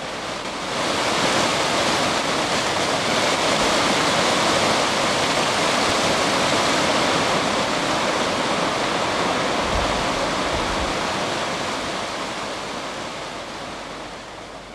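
Water rushing and splashing over rocks in a shallow stream, a steady rush that swells up about a second in and slowly fades away over the last few seconds.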